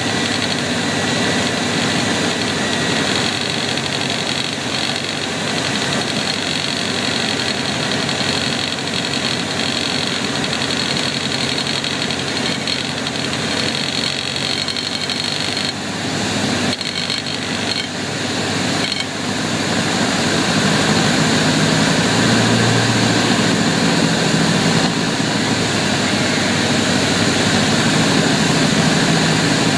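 Single-engine propeller plane's engine and propeller running steadily, heard from inside the cockpit with rushing air noise. The sound grows a little louder, with a stronger low hum, about two-thirds of the way through.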